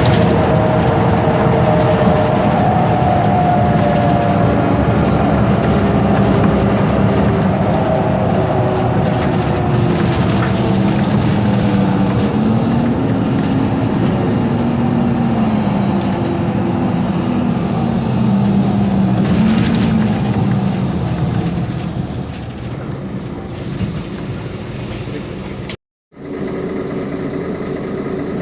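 Mercedes-Benz Conecto G articulated bus with its OM457LA six-cylinder diesel running under way, with a differential whine that rises and falls with speed. The sound eases off after about twenty seconds, there is a short air hiss, and then a lower, steady running sound follows.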